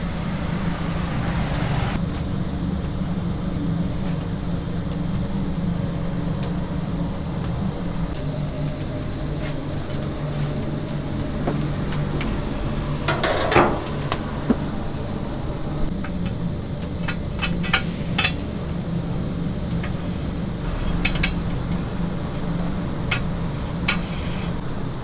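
Kitchen work: metal utensils and dishes clinking and clattering now and then, with a louder clatter about halfway through and a run of sharp clinks near the end, over a steady low machine hum.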